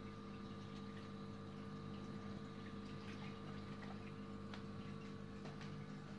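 Reef aquarium equipment running with a steady hum over water trickling and bubbling, with a few faint ticks about halfway through.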